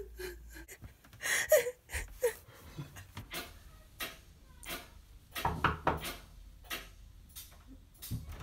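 Scattered knocks, bumps and rustles in a small room, with a couple of brief vocal sounds about a second and a half in.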